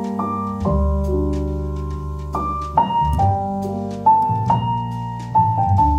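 Solo piano music: a slow piece of chords, each struck and left to ring out, a new chord coming every second or so.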